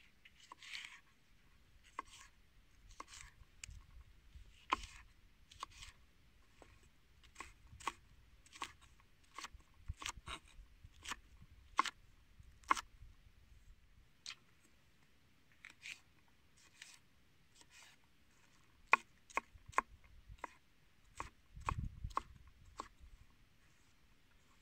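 Chef's knife chopping peppers on a wooden cutting board: irregular crisp knocks as the blade cuts through the pepper and strikes the board, with a short pause about midway.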